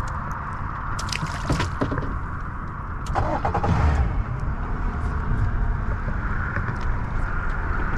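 Boat's outboard motor running steadily under way, a little louder between about three and four seconds in.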